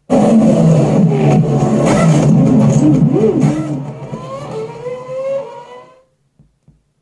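IKEA Eneby 30 Bluetooth speaker playing back a test clip with an engine-like revving sound that starts abruptly, swings up and down in pitch, then rises steadily and fades out about six seconds in.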